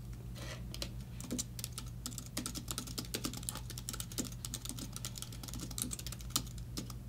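Typing on a computer keyboard: a fast, uneven run of key clicks, over a steady low hum.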